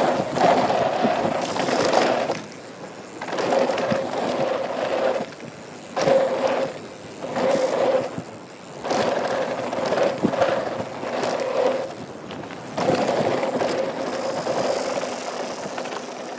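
Mountain bike ridden fast down a dirt jump trail: tyres rolling and crunching over dirt with rattling and a steady hum. The noise drops off suddenly for about a second several times.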